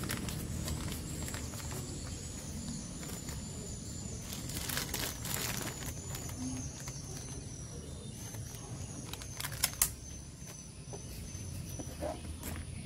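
Paper wrapper rustling and a spoon working in a stainless-steel bowl, with a spell of crinkling about five seconds in and two sharp knocks near the end, over outdoor ambience with a faint high whine.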